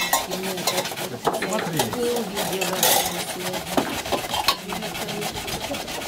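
A metal utensil scraping and stirring in an enamel basin, in many short repeated strokes.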